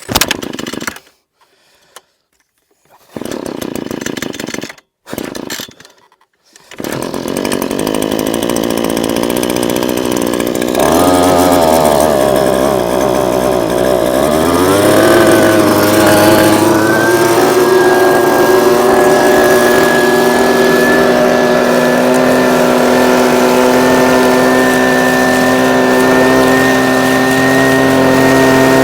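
A small gasoline engine on a prospecting vacuum catches about eleven seconds in, its pitch wobbling and climbing for several seconds before it settles into a steady, loud run. Before that come a few short bursts of noise with dead-silent gaps between them.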